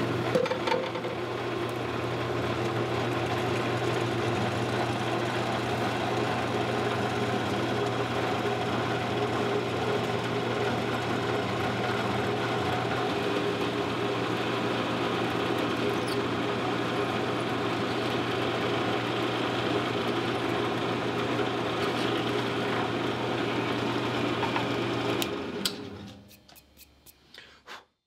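Drill press motor running steadily while a small bit, about 1/8 inch, drills into a purpleheart handle. It is switched off about 25 seconds in and winds down, followed by a few light clicks.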